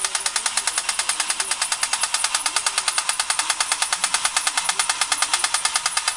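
Battery-operated tin toy hot rod running, its small electric motor driving the mock V8 pistons in a fast, even, tinny clatter of about eight strokes a second.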